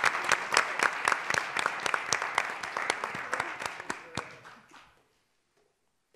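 Audience applauding with many hands clapping. The applause thins out and dies away about four to five seconds in.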